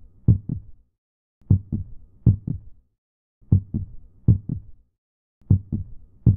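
Low, heartbeat-like double thuds in a steady repeating pattern: two pairs of thuds close together, then a longer gap, repeating every two seconds, with dead silence between the groups.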